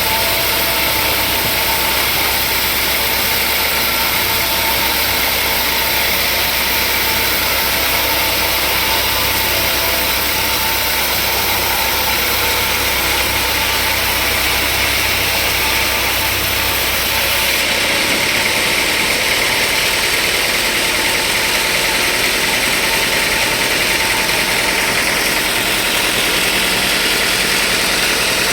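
Sawmill machinery running steadily, an engine-like drone with a strong hiss over it; about 17 seconds in the low hum drops away and the sound shifts, as if the load or machine changes.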